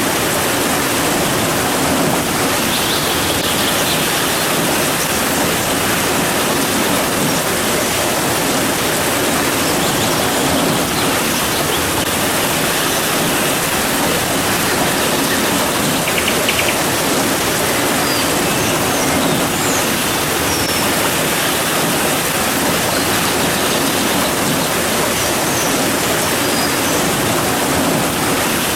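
Steady rain: a dense, even hiss that does not change.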